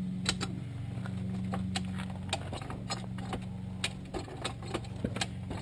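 Irregular metallic clicks and knocks from an I-beam farm jack being worked against a tractor tire to push its bead off the rim, over a steady low engine hum.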